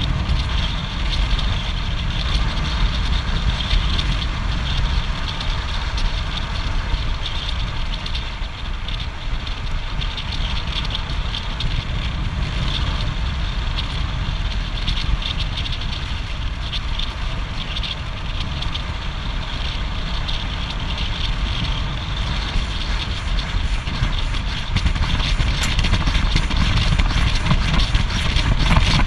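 Wind rushing over an action camera's microphone on a road bike descending at speed: a steady low rumble with a hiss on top, a little louder in the last few seconds.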